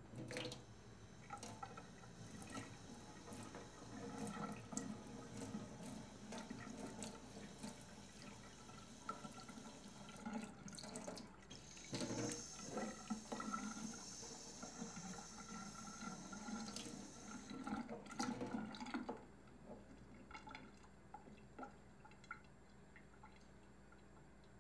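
Metal tools and parts clinking and knocking in a stainless steel kitchen sink during a repair of the leaking sink, with the kitchen tap running into the sink for about five seconds midway. The clatter stops about three quarters of the way through.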